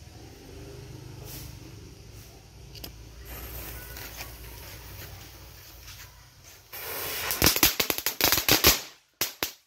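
Small ground firework lit on paving: a hiss as it starts to burn, then a rapid run of sharp crackling pops for about two seconds as it sprays sparks, with a few last pops before it stops.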